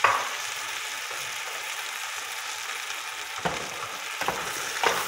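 Chicken, rice and vegetables sizzling steadily in a hot metal pot with broth just added. A spoon stirs through the mix, with a scrape right at the start and several quick scraping strokes near the end.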